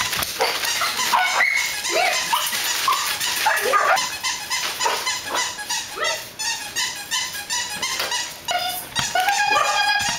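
Several Xoloitzcuintli puppies yipping and barking in play: short, high calls every second or so, over a busy run of quick clicks.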